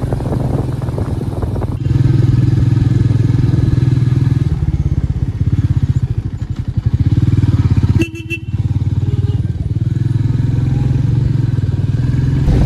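Motorcycle engine running as the bike is ridden, a steady low hum with a short drop in the engine sound about eight seconds in.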